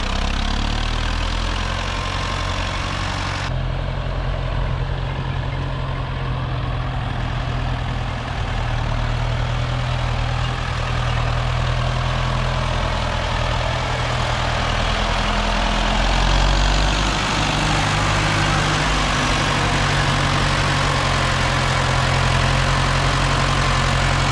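Diesel engine of farm machinery running steadily at low revs, its low note shifting a little about two-thirds of the way through.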